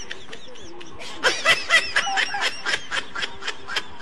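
High-pitched giggling laughter, a quick run of short laughs several times a second that starts about a second in.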